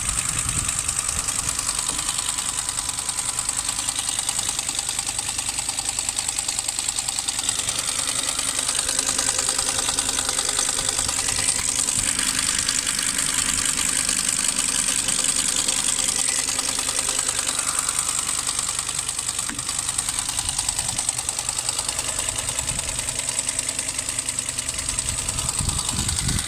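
Mercedes-Benz A150's 1.5-litre four-cylinder petrol engine idling steadily with an even, fast tapping knock. It is a hot-engine knock that comes and goes and has survived a new timing chain tensioner, new hydraulic lifters and fresh 5W-30 oil; the owner does not know its cause.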